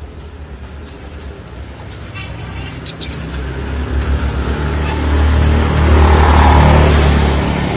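A motor vehicle passing by, its engine rumble building to a peak and then fading. A caged bird chirps briefly a few times partway through.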